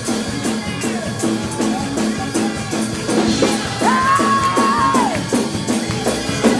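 Church praise-break music: a drum kit and other instruments playing a quick, steady beat. About four seconds in, a woman's voice holds one long high shout that falls away at its end.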